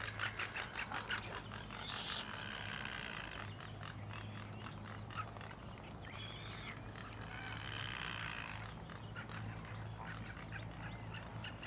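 Seabirds calling at a nesting colony. A rapid rattle of clicks comes first, then several harsh, drawn-out calls in separate bouts, over a steady low hum.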